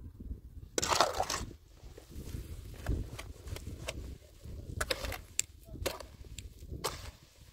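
A steel shovel scraping and crunching through a gritty grey mix in a metal wheelbarrow: one longer crunching scrape about a second in, then several shorter scrapes.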